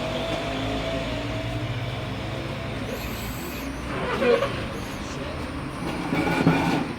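A motor vehicle engine running with a low, steady hum that fades after about three seconds, over steady background noise, with a couple of short louder sounds about four seconds in and near the end.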